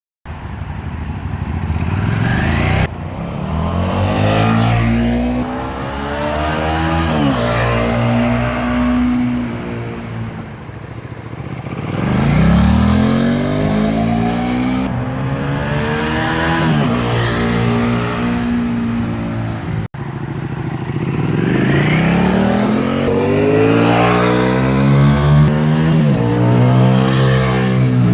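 Suzuki SV650's 90-degree V-twin motorcycle engine accelerating hard through the gears: the revs climb and drop back at each upshift, several times over. There is an abrupt cut about 20 seconds in.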